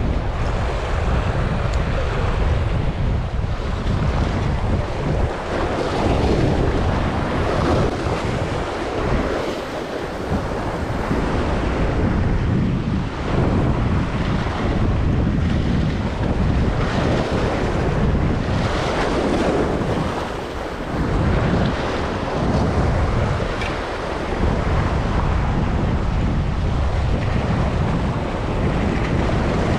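Sea waves washing and breaking in foam against shore rocks, with wind rumbling on the microphone. The surf swells and eases every few seconds.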